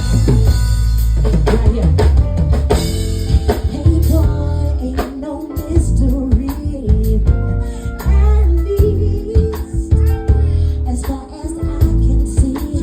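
R&B music playing loud, with a drum kit beat, bass and a melodic line above them.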